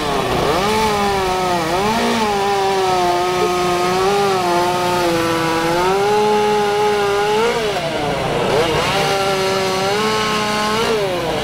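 Two-stroke chainsaw running loudly while cutting into a wooden log for carving. Its engine pitch dips sharply and climbs back several times as the throttle is eased and reopened.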